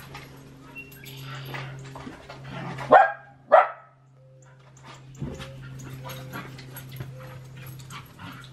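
A dog barking twice, two short loud barks about half a second apart, about three seconds in.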